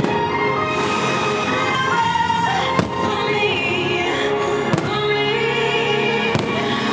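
Music of long held notes plays throughout, with three sharp firework bangs from bursting aerial shells about three, four and three-quarters, and six and a half seconds in.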